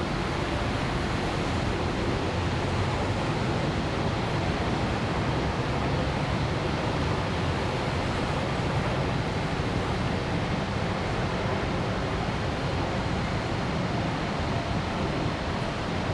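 Steady urban ambience: a continuous wash of traffic noise with a low hum underneath, no single sound standing out.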